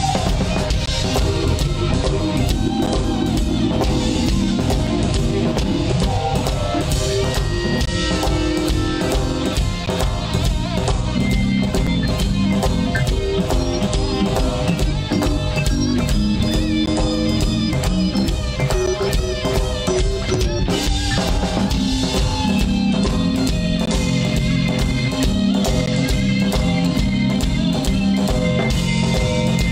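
Live band playing: an electric guitar over a drum kit and bass guitar, steady and unbroken throughout.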